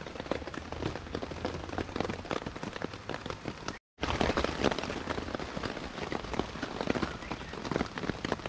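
Rain falling on a tarp overhead, a dense stream of small drop hits. It cuts out for a split second just before four seconds in.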